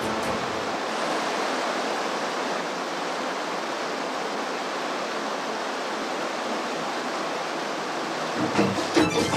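Steady rushing of a waterfall pouring over rock ledges, an even wash of water noise. Music with drums comes in shortly before the end.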